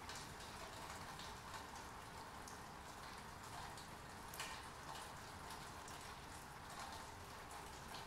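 Rain falling steadily: an even patter of many drops, with single drop splashes standing out here and there and one sharper splash a little past the middle.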